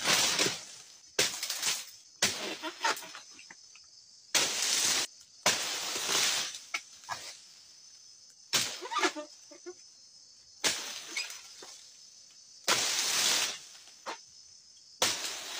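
A long-pole harvesting sickle cutting at an oil palm's fronds and fruit bunch: repeated harsh cutting strokes about every one to two seconds, over a steady high chirring of insects.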